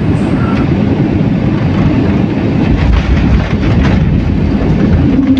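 Passenger airliner rolling out on the runway just after landing, heard from inside the cabin: a loud, steady rumble of engines and wheels on the tarmac. A steady hum rises briefly near the end.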